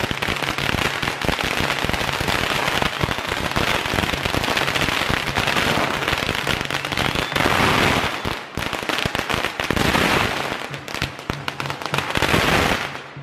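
A string of firecrackers going off in a rapid, dense crackle of pops, thinning to scattered separate cracks about two-thirds of the way through.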